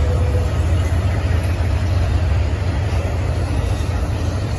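Norfolk Southern intermodal freight train rolling past, its trailer- and container-laden flatcars making a steady, loud low rumble.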